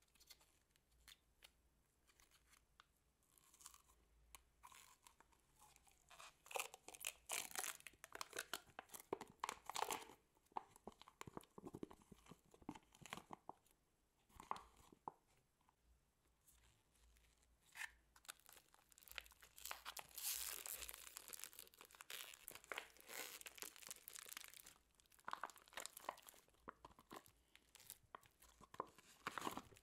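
Slime being tipped out of plastic tubs onto a heap of other slime: sticky crackling and small pops as it peels away and folds over, in two busier stretches about a quarter and two-thirds of the way in.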